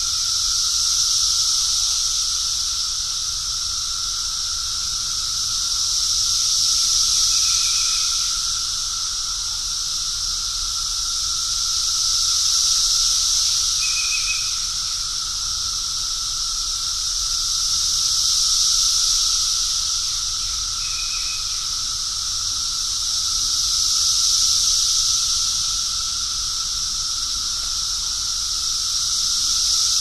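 Cicadas singing in chorus: a loud, continuous high-pitched buzzing hiss that swells and eases about every six seconds, with a faint steady lower tone beneath it.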